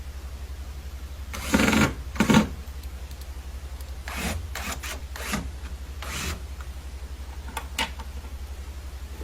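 A steady, low pulsing hum, with a few short knocks and scrapes that come in a pair near the start, a cluster in the middle and once more near the end.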